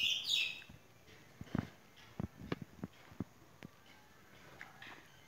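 Ultramarine grosbeak (azulão) ending a song phrase of quick, falling whistled notes about half a second in. Then scattered soft clicks, with a faint short call near the end.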